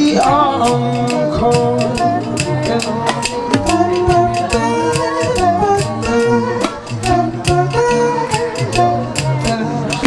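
Vocal improv ensemble singing together in several parts, sustained and shifting pitches over one another, with a cajon drummed in a steady, quick rhythm of sharp strikes underneath.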